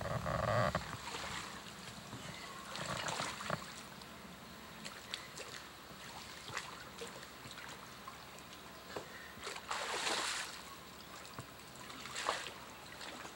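Brush being pulled through a shallow creek: scattered splashes of water and rustling branches in short bursts, the longest about ten seconds in and another near the end.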